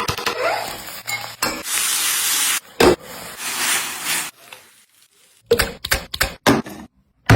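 Kitchen cooking sounds in short cut-together bits: bursts of sizzling and hissing from a hot pan, broken by a few sharp knocks and clicks of utensils against the pan.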